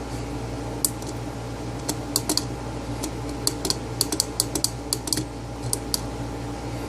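A run of about a dozen short, sharp clicks, some in quick pairs, like small buttons or a keyboard being pressed, over a steady low electrical hum.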